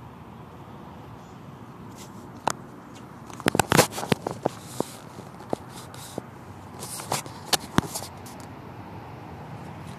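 Phone handling noise: a cluster of sharp clicks and crackles in the middle, as fingers shift on the phone, over a steady low rumble.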